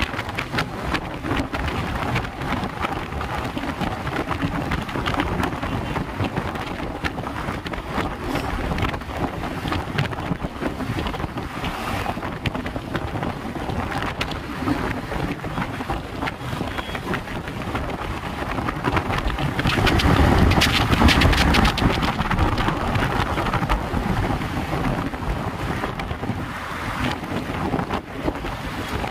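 Wind rushing over the microphone from a car moving at speed, mixed with the rumble of tyres and passing traffic; it swells louder for a couple of seconds about two-thirds of the way through.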